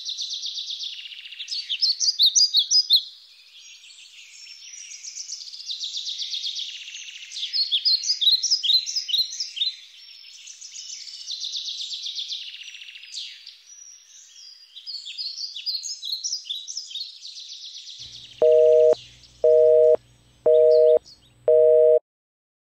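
Birds singing in repeated high chirping phrases. Near the end come four short electronic beeps of a steady two-note tone, about a second apart, like a telephone busy signal.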